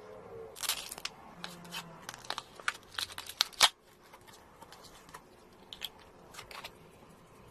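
Slime being handled, giving a run of crisp clicks and crackles, densest in the first half and thinning out after about four seconds.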